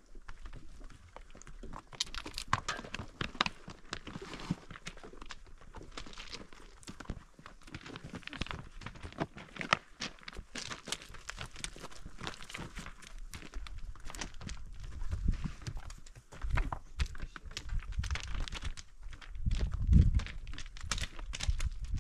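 Dry fodder plants rustling and crunching in a dense, irregular crackle, with heavier low thumps in the second half, loudest about twenty seconds in.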